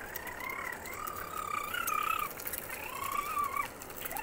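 Small electric ride-on toy quad bike's motor whining as it drives over concrete, in two stretches that waver in pitch and drop away as it stops.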